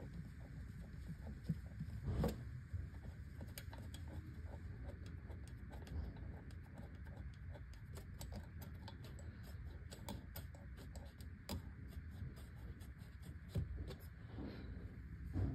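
Light metallic clicks and scrapes of bolts being hand-threaded into the driveshaft-to-differential flange, with a louder knock about two seconds in and another near the end, over a low steady hum.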